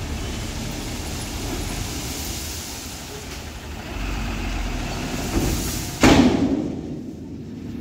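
Tata tipper truck's diesel engine running while crushed stone slides off the raised tipper bed. About six seconds in there is a sudden loud rush that fades over about a second.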